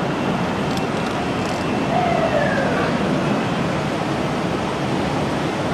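An emergency-vehicle siren wails and falls in pitch about two seconds in, over a steady roar of city noise.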